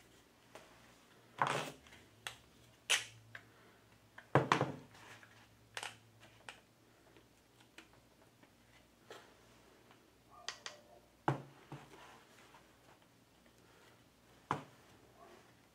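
Plastic spring clamps clicking onto a glued wooden harpsichord register, with irregular knocks of wood and plastic as the clamps and register are handled on the table. There are a dozen or so sharp clicks at uneven intervals, the loudest about four seconds in.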